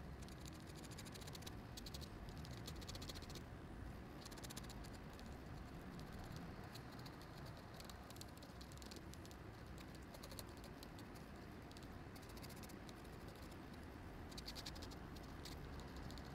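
Ink pen nib scratching on paper in bursts of quick short hatching strokes, over a faint low hum.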